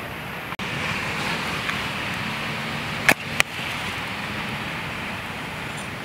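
Steady rushing of surf and wind on the beach, with two sharp clicks about three seconds in.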